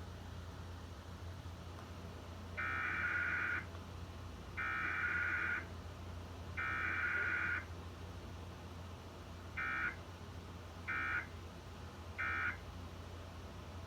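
Emergency Alert System Required Weekly Test over a TV: three one-second bursts of the screechy SAME digital header tones, then three short end-of-message bursts that close the test.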